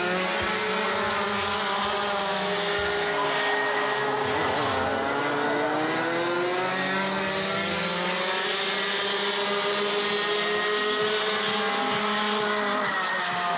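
Several racing kart engines revving and easing off as the karts lap the circuit. Their pitches rise and fall and overlap, without a break.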